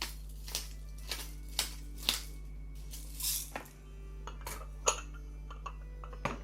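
Light clinks and taps of tableware, short sharp knocks about every half second with a louder one near the middle, over soft background music.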